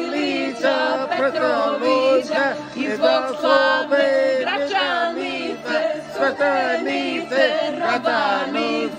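A man singing unaccompanied, a continuous melody with a wavering, ornamented line.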